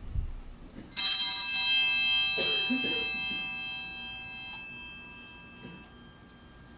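Altar bell struck once at the consecration of the chalice, several clear tones ringing together and fading away over a few seconds.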